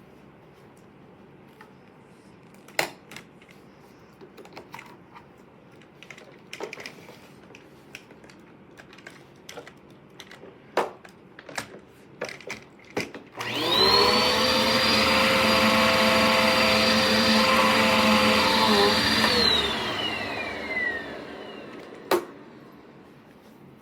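Scattered clicks and knocks of handling, then the Eureka PowerSpeed upright vacuum cleaner's motor starts about halfway through with a rising whine that settles into a steady run. After about six seconds it is switched off and the whine falls away as the motor winds down.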